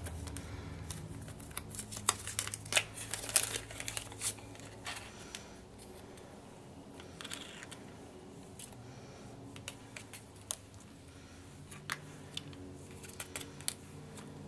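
A small spoon scraping and tapping against a little plastic jar of powdered pigment as it scoops, a scatter of light clicks and scrapes that is busiest in the first few seconds and sparser after.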